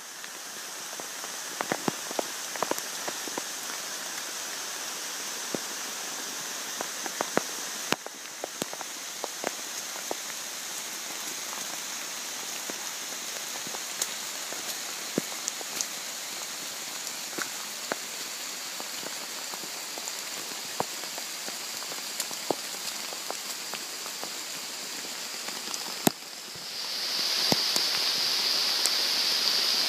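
Heavy rain falling on a forest and trail: a steady hiss dotted with scattered sharp ticks. Near the end it grows suddenly louder.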